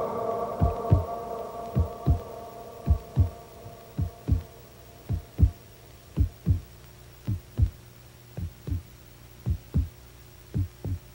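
Slow heartbeat: pairs of soft low thumps, lub-dub, about once a second, over a steady low hum. A held musical chord fades out over the first few seconds.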